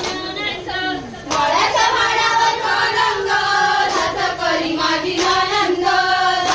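Group of women singing a Konkan jakhadi folk-dance song in chorus, with hand-clapping to the beat. The singing comes in louder about a second in.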